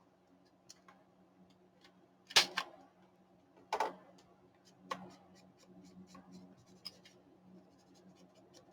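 Paper and craft supplies handled on a desk: three sharp taps or knocks about two and a half, four and five seconds in, then a run of light, quick ticks and scratches, over a faint steady hum.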